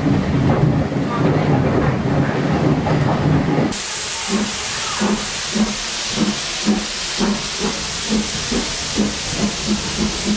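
Heritage steam train heard from inside a carriage: first a low running rumble, then, after an abrupt change, steam hiss with a regular beat of locomotive exhaust chuffs that quickens from about two to about two and a half a second as the train gathers speed.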